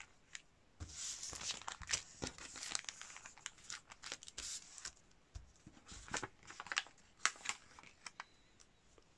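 Brown kraft paper bag rustling and crinkling as it is handled and laid flat, in irregular short bursts with small clicks.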